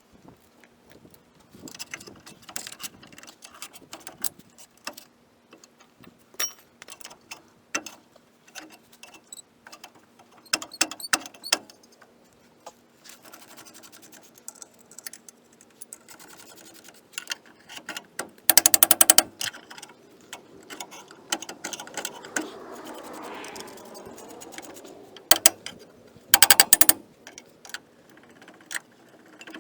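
Metal clinks and clicks of tools working a stuck brake drum off a Chevy Silverado's rear hub. Two short bursts of rapid clattering come past the middle and again near the end.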